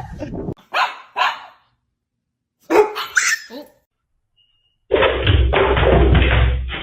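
A dog barking in short single barks: two about a second in, then a few more close together around three seconds in. About five seconds in, a loud rough rumbling noise starts abruptly.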